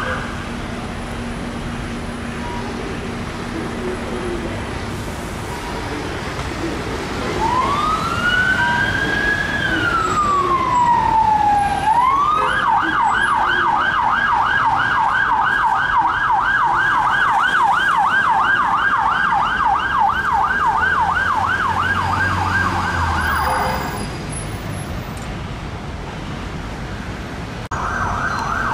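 Police siren on an unmarked Land Rover Discovery: one slow wail rising and falling, then a fast yelp of about three to four cycles a second that runs for roughly eleven seconds and cuts off, leaving traffic noise. Another siren yelp starts near the end.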